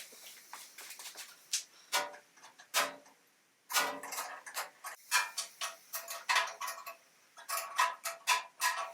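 Irregular metal clicks and clinks of tools and bolts as the jointer is bolted down to its stand. The clicks are sparse at first and come quicker from about halfway, some ringing briefly.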